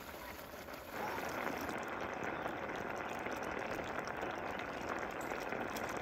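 A pot of rice in liquid bubbling at a simmer, a steady bubbling hiss that grows louder about a second in.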